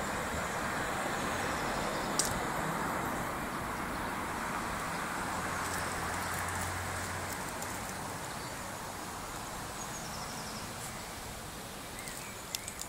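Steady hum of distant road traffic, easing off slightly later on, with a sharp click about two seconds in.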